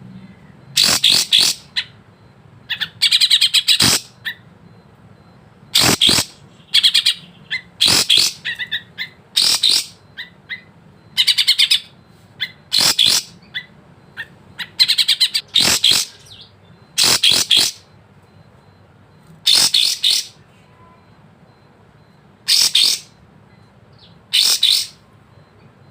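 Kapas tembak, a bulbul, singing loud, short, rapid phrases, one every second or two, with a few longer pauses toward the end.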